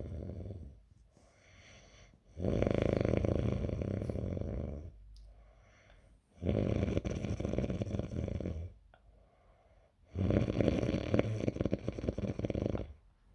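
A dog snoring in a steady rhythm: long, loud snores of about two and a half seconds each, roughly every four seconds, with quieter breaths in between. Three full snores, plus the tail of one at the very start.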